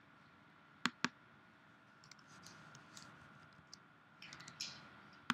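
Two sharp computer mouse clicks a fifth of a second apart, a double-click about a second in. After it come faint keyboard taps as text is typed, with a short cluster of taps near the end and one more sharp click at the close.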